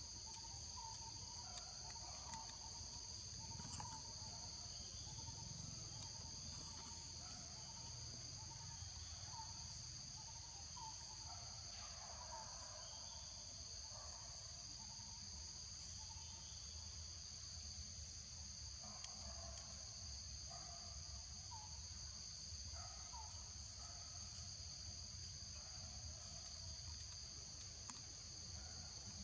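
Steady outdoor insect chorus, a constant high-pitched drone, with faint short chirping calls scattered through it and a low rumble underneath.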